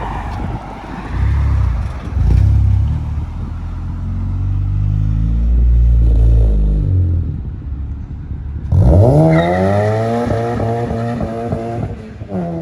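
Honda Civic Si's 2.4-litre four-cylinder running through a Yonaka 3-inch cat-back exhaust and Full Race downpipe: a low rumble at low speed. About nine seconds in it suddenly gets louder under hard acceleration, the pitch climbing steadily, then rises again near the end.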